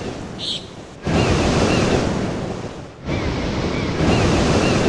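Ocean surf washing onto a beach: a loud, steady rushing that cuts in suddenly about a second in, breaks off briefly near three seconds, then comes back.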